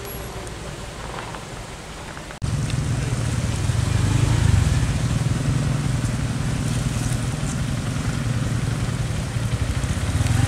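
A vehicle engine running steadily with a low, even note. It comes in suddenly about two and a half seconds in, after a quieter low hum.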